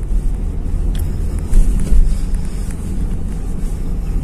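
Steady low rumble of a car being driven, heard from inside the cabin: engine and road noise, with a faint click about a second in.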